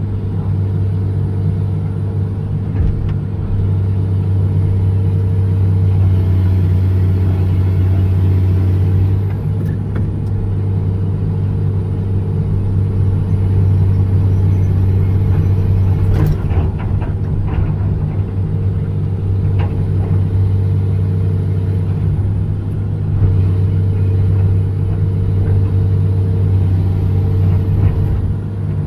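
John Deere 200LC (Hitachi EX200) excavator's diesel engine running steadily under hydraulic load as the boom and bucket work, with a few sharp knocks partway through.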